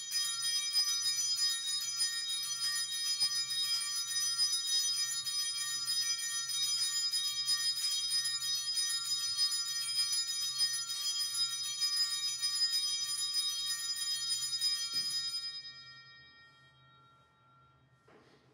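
Altar bells (Sanctus bells) shaken continuously to mark the blessing with the Blessed Sacrament in the monstrance: a dense, jangling ringing of several small bells. The shaking stops about 15 seconds in and the tones fade over a second or two.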